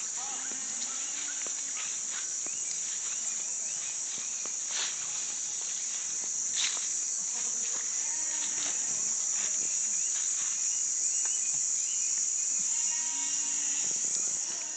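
A steady, high-pitched chorus of insects, with scattered clicks and rustling, and a goat bleating briefly near the end.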